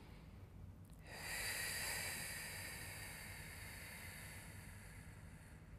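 A long, slow exhale through the mouth: a breathy hiss that starts about a second in and fades away gradually. It is a controlled out-breath held in a deep stretch.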